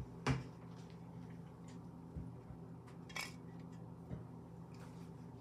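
Aluminium energy-drink cans handled and set down on a cloth-covered table: a soft thump shortly after the start, a light metallic clink about three seconds in, and a few faint knocks, over a faint steady hum.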